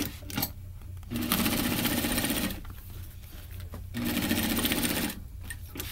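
Hakari industrial single-needle lockstitch sewing machine stitching through heavy layered canvas in two short runs, a longer one about a second in and a shorter one near the end, each a fast, even chatter of the needle.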